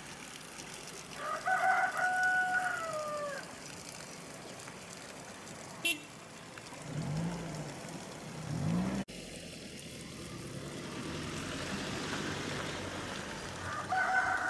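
A rooster crowing twice: one long crow about a second in, and another starting near the end.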